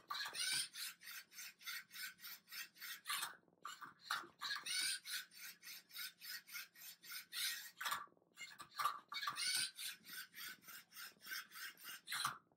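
Lego Mindstorms MindCuber robot working a Rubik's Cube: its motors and plastic parts rasp in quick repeated strokes, several a second, as the arm tips the cube and the turntable turns its layers. The strokes break off briefly twice.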